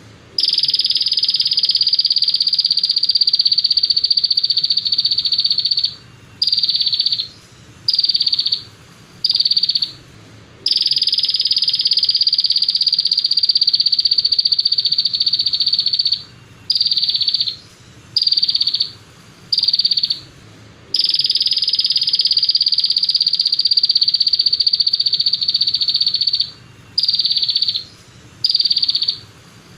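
Songbird tutor (masteran) recording of a rapid, dense, high-pitched trilled 'tembakan' song: a long buzzing trill of about five seconds followed by three short bursts, the pattern repeating three times.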